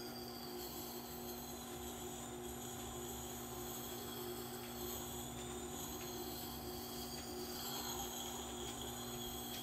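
Tormek T8 wet grinder running, its motor giving a steady hum, while a hatchet head's edge is ground on the wet stone, with faint high tones that slowly rise and fall.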